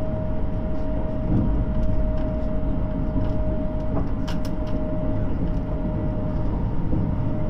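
Interior running noise of a JR West 683 series limited-express electric train at speed, heard inside a motor car: a steady low rumble of wheels on rail with a constant high hum and a few light clicks.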